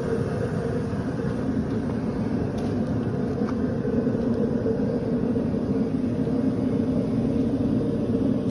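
Steady low hum and rumble of background machinery, with a couple of faint ticks.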